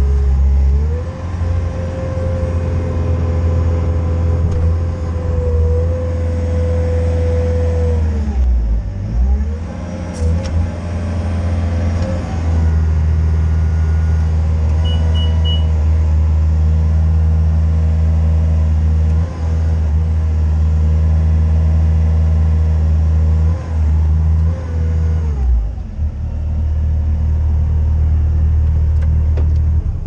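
2017 Bobcat S630 skid steer loader's diesel engine running, heard from inside the cab. Its revs rise about a second in, fall and pick back up between about eight and twelve seconds in, and fall again near the end.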